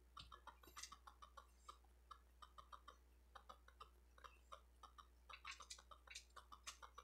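Faint, irregular small clicks and taps, several a second, from a putty-tipped diamond painting drill pen picking drills out of a plastic tray and pressing them onto the canvas.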